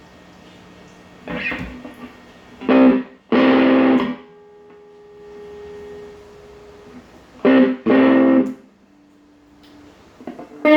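Electric guitar played through a Gibson Gibsonette GA-8 tube amp set at 5: a few strummed chords in short bursts with pauses, and single notes left ringing between them.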